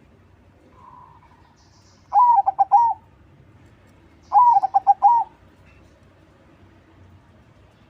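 Crossbred perkutut (zebra dove) singing its cooing song: two phrases about two seconds apart, each a drawn-out opening note followed by a quick run of short, clipped coos. A faint, soft coo comes about a second in.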